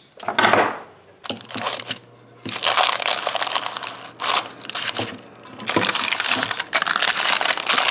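Baking parchment crinkling and rustling as it is folded and pressed around melted plastic in a metal loaf pan. A few short rustles at first, then dense continuous crackling from about two and a half seconds in.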